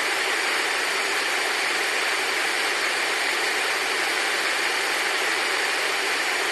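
Steady, even hiss like white noise, unchanging throughout, with no monitor beeps heard.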